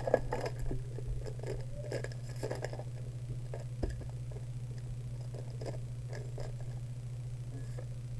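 Trading cards being handled on a playmat: soft rustles and small clicks, mostly in the first few seconds, with a single knock near the middle, over a steady low hum.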